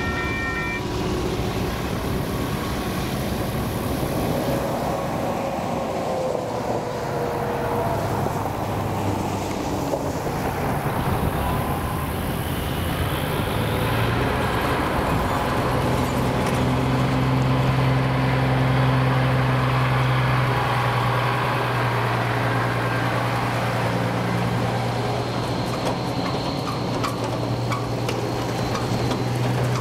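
Road traffic moving over a level crossing: a semi truck's diesel engine and passing cars, with a steady low engine hum from about halfway. The crossing signal's bell stops ringing within the first second.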